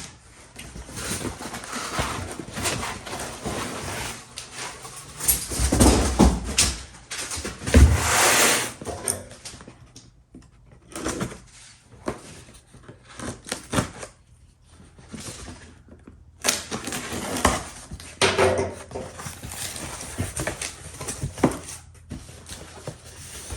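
Packaging being pulled out of a cardboard box by hand: irregular rustling, scraping and knocks, loudest about six and eight seconds in.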